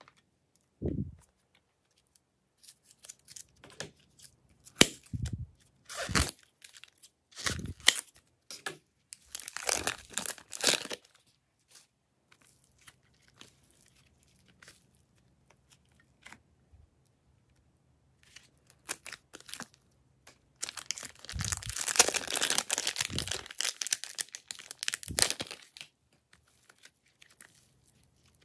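Soft modelling clay being squeezed, twisted and pulled apart by hand, giving irregular crackling, tearing sounds in bursts, with a few soft thuds. A quiet pause falls midway, and the densest, loudest crackling comes about three quarters of the way through.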